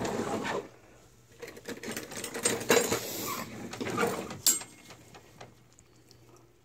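Carving knife sawing through roast turkey skin and breast meat in three bouts of rapid rasping strokes, with a sharp click about four and a half seconds in.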